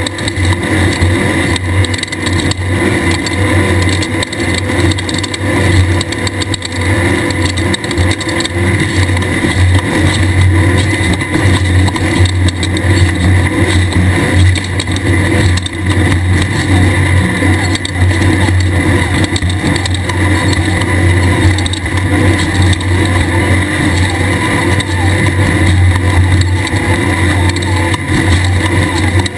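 Race buggy engine, an air-cooled Volkswagen flat-four of the 1600 class, running hard at fairly steady revs, with frequent knocks and rattles from the car.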